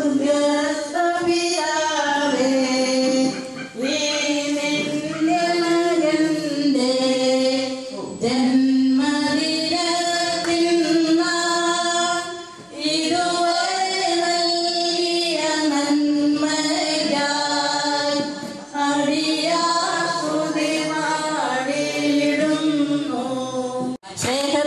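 Singing: a melody of long held notes, sung in phrases of a few seconds with short breaks between them.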